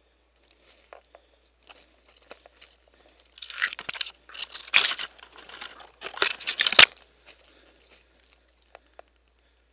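Dry twigs, branches and leaves crackling and scraping as a person pushes through dense brush, with a few seconds of heavy crackling in the middle ending in a sharp snap, then a few light ticks.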